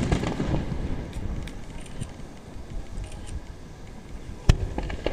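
Aerial firework shells bursting. The rumbling echo of one burst dies away at the start, then another shell bursts with a single sharp bang about four and a half seconds in, followed by a few smaller pops.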